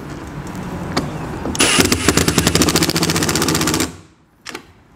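Cordless drill/driver running as it drives a screw through the side of a kayak hull. About a second and a half in it breaks into a loud, rapid, even rattle as the screw tightens down, then stops suddenly near the end.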